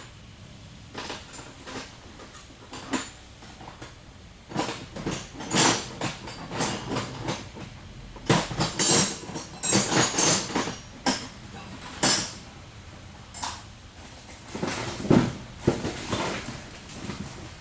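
Metal tools and engine parts clinking, clanking and rattling in irregular bursts as fittings are worked loose with a spanner and parts are handled.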